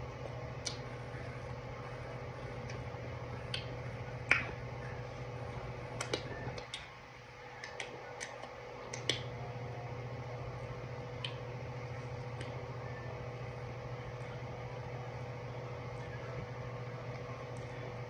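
Scattered sharp mouth clicks and lip smacks of eating with the fingers, over a steady low electrical hum.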